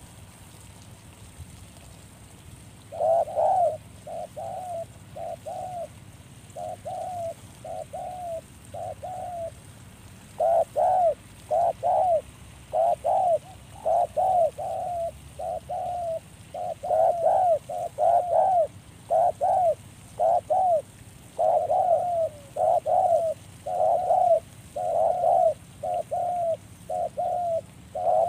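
Spotted dove cooing: a string of short, low, rolling coo phrases that begins about three seconds in and repeats steadily. Louder phrases alternate with fainter ones.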